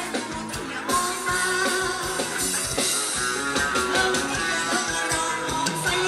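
Live band playing loud amplified Thai ramwong dance music: a singer over instruments and a steady drum beat.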